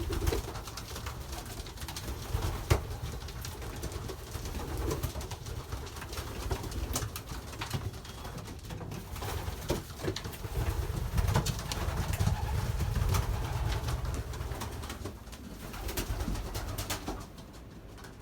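Racing pigeons cooing in the loft, over a low rumble, with a few sharp clicks.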